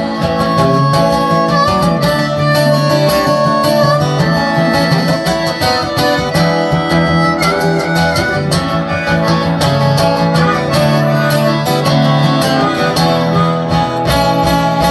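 Live acoustic folk music, an instrumental break: strummed acoustic guitar with a held, wavering lead melody played over it.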